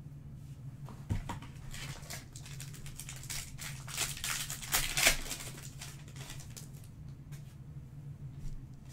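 A foil trading-card pack wrapper is torn open and crinkled by hand, a dense run of crackling rustles that is loudest about five seconds in. A steady low hum runs underneath.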